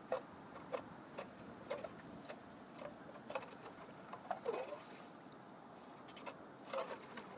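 Faint, irregular sharp ticks about two a second, each with a brief ring: an ice chisel (spud bar) striking lake ice to check its thickness.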